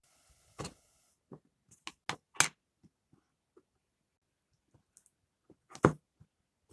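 Slime packaging and containers being handled and opened: a string of short clicks, taps and rustles with pauses between them, the loudest near the middle and near the end.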